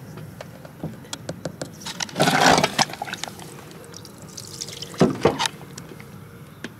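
A thin sheet of ice on a bucket of water being pressed and broken, cracking and crunching with water underneath. Small sharp cracks run throughout, with two louder crunches about two seconds and five seconds in.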